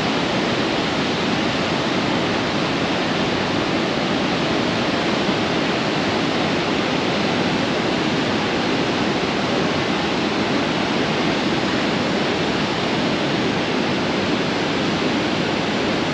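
Niagara Falls, the American Falls in the foreground, pouring: a steady, unbroken rush of falling water.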